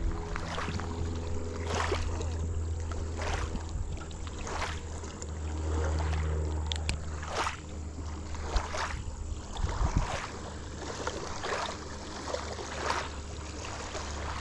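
Rhythmic water swishes about every second and a half, like paddle strokes from a small boat, over a steady low rumble.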